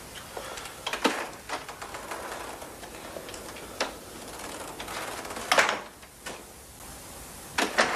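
A door handled and shut: a few sharp clicks and rattles as it is opened, then a louder knock with a short ring about halfway through as it closes, and a couple more clicks after.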